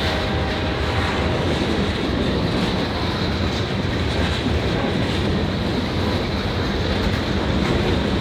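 Coal train rolling past, a steady rumble of wheels on rail with some clickety-clack.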